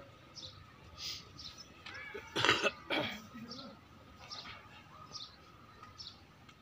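A loud, rough, cough-like burst about two and a half seconds in, followed by a shorter second one. Small birds chirp briefly and repeatedly in the background.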